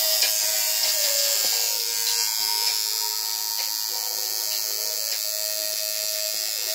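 Coil tattoo machine buzzing steadily as it runs on the skin, its pitch dipping slightly about a second and a half in.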